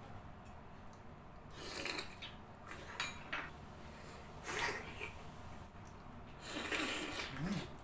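Mouth sounds of people eating balut, boiled fertilized duck eggs: a few short slurping and sucking bursts, with a sharp click about three seconds in.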